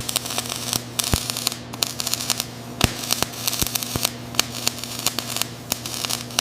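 Arc welding crackling, with irregular sharp pops over a steady low hum.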